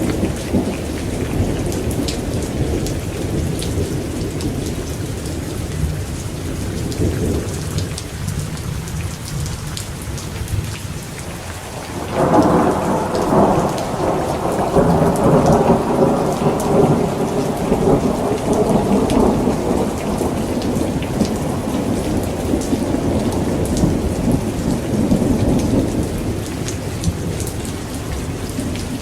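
Steady heavy rain falling, with a low rumble of thunder underneath. About twelve seconds in, a louder thunder rumble breaks in suddenly and rolls on for several seconds, slowly dying away.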